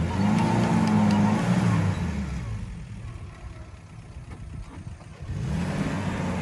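Maruti Suzuki Gypsy 4x4's engine revving under load as it climbs a rocky bank. The revs rise for about two seconds, ease off, and climb again near the end.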